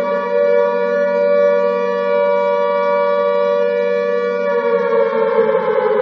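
Alarm siren sounding a loud, steady wail of several tones at once. Its pitch starts to slide down about five seconds in.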